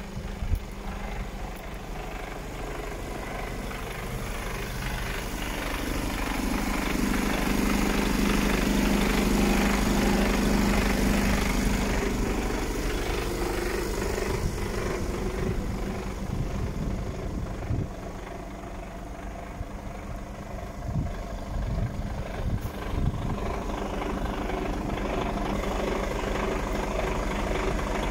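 Mercedes-Benz Actros 1840 tractor unit's inline-six diesel engine idling steadily; it grows louder for several seconds about six seconds in, then settles back.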